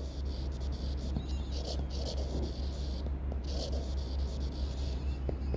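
Stylus scratching on a tablet screen while words are handwritten, in short strokes that start and stop, over a steady low hum.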